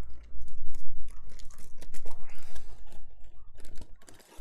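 Small plastic bags of board-game pieces rustling and crinkling as they are handled, with many small clicks of the pieces knocking together inside.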